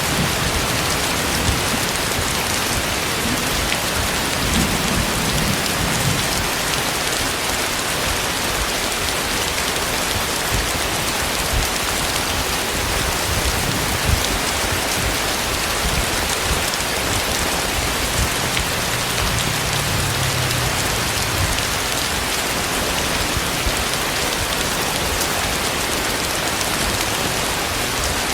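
Heavy tropical rain pouring steadily onto surfaces, a dense even hiss with scattered sharper drop impacts. A faint low rumble rises under it twice.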